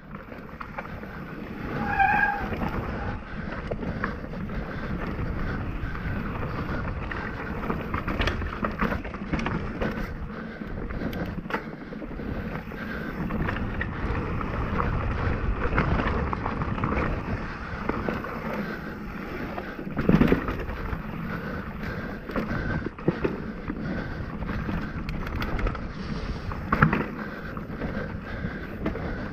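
Mountain bike riding fast down a dirt singletrack: tyres rolling over the dirt with steady wind on the microphone, and frequent knocks and rattles from the bike over roots and bumps.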